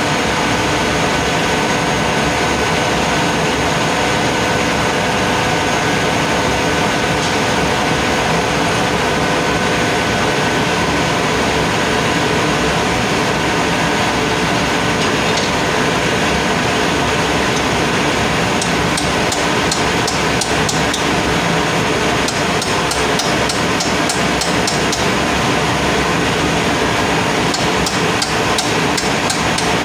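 Steady loud drone of running machinery with several steady tones. In the second half, quick metallic clicks and clinks of a spanner working on the compressor's fittings.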